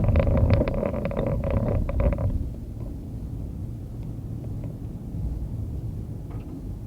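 Low, steady rumble of a car driving through a blizzard. It opens with a sharp click and about two seconds of louder rattling and ticking that stops suddenly.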